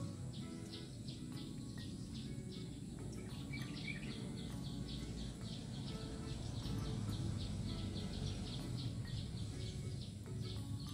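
Outdoor ambience by a pond: a steady low rumble, with a rapid, even run of high chirps, several a second, starting about three seconds in.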